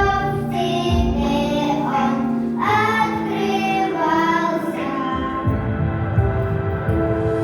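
Children singing a song in Russian over backing music, holding sustained notes.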